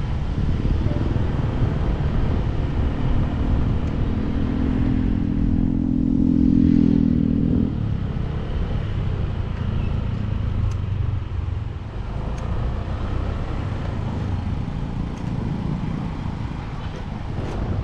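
Motorcycle on the move, heard from the rider's position: a steady low rumble of engine, road and wind on the microphone. From about three seconds in, a louder droning engine note builds. It cuts off suddenly near eight seconds.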